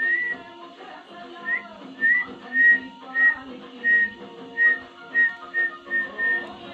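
A series of short, high whistled notes, each sliding up and then held briefly. They come about twice a second and quicken toward the end, over background music.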